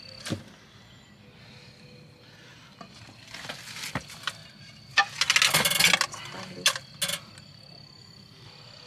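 A plate scraping and clinking against the metal grill of a pit oven as cooked lamb is scooped off it: a few sharp clinks and one longer rattling scrape about five seconds in. Crickets chirp steadily in the background.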